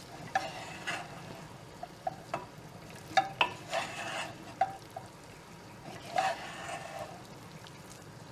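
A utensil stirring and scraping chicken and yogurt around a frying pan, in irregular strokes with light knocks against the pan, over a faint steady sizzle.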